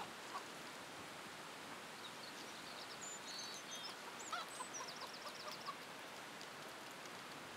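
Faint outdoor ambience: a steady low hiss with scattered bird chirps and calls, including a quick run of high chirps about two thirds of the way in.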